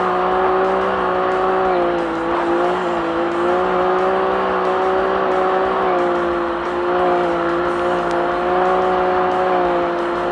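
Race UTV's engine running hard at a steady, high pitch with only slight dips, over a rushing wash of wind and terrain noise, at racing speed.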